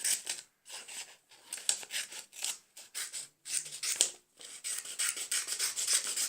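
Scissors cutting paper: a run of quick snips and rustles, with a few brief pauses between runs of cuts.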